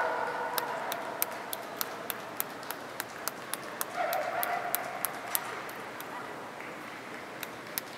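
A dog gives a short, slightly falling bark about four seconds in, with a fading pitched call at the very start. Sharp clicks come about twice a second throughout, over the low hiss of a large hall.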